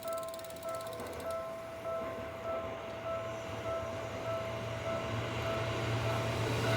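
Japanese railway level crossing warning bell ringing in a steady repeating ding, while a train's rumble grows louder from about five seconds in as it approaches the crossing.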